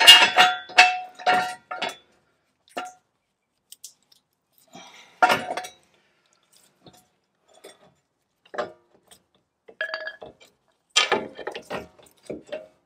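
Metal clanks and clinks of steel hand tools and front suspension and brake parts being handled. They come in clusters of sharp knocks with a brief ring: several near the start, one about five seconds in, and a run around eleven seconds in.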